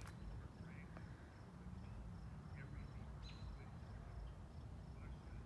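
Faint dusk ambience. A high insect chirp repeats in an even, rapid pulse, and birds give a few short chirps of evening song, over a low steady rumble.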